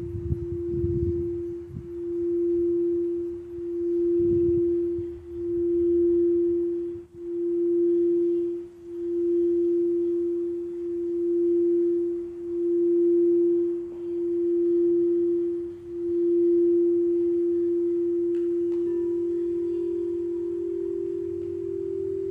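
Quartz crystal singing bowl sounding one steady tone that swells and fades about every two seconds. Near the end a second, slightly higher bowl tone joins it.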